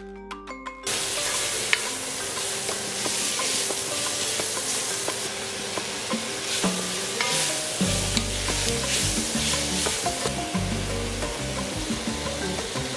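Diced onion and carrots sizzling in hot oil in a Dutch oven and being stirred with a wooden spoon. The sizzling starts suddenly about a second in and carries on steadily, with light scraping clicks of the spoon.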